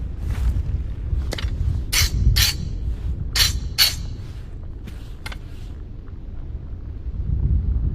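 Hatchet blade being sharpened: about eight short, rasping strokes on the steel, mostly in pairs, some with a faint metallic ring, stopping about five and a half seconds in. A low rumble runs underneath.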